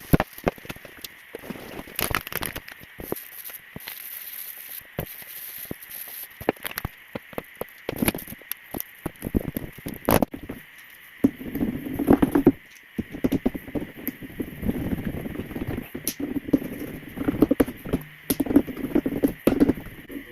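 Hand work on a saw being restored: irregular scratching, crackling and sharp clicks, with denser rubbing strokes from about eleven seconds in.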